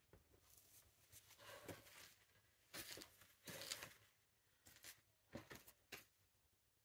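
Faint, brief scuffs and rustles, several short ones, from a boulderer's climbing shoes and hands moving on the rock while pulling over an overhang.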